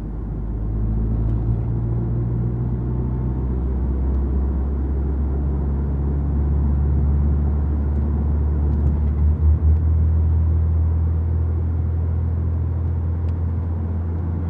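A car driving along a road: a steady low rumble of engine and tyres, with a brief pulsing in the rumble about nine seconds in.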